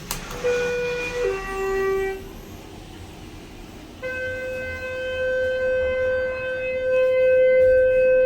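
A click, then an elevator chime sounds a falling two-note ding. About four seconds in, a steady electronic buzzer tone starts and holds: the Schindler 330A's door nudging buzzer, sounding while the doors are forced slowly shut.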